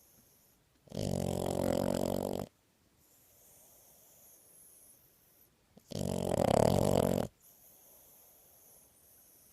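French bulldog snoring while awake: two loud snores, each about a second and a half long and about five seconds apart, with soft breathing between.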